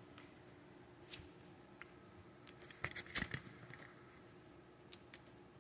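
Faint clicks and small rattles of plastic RC parts and servo plugs being handled, clustered about two and a half to three and a half seconds in.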